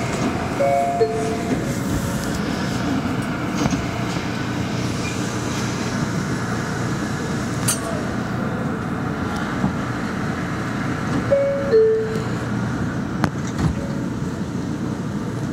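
A New York City subway train standing at a station platform, with a steady rumble and hum. A descending two-note door chime sounds about half a second in and again about eleven seconds in, the signal that doors are closing.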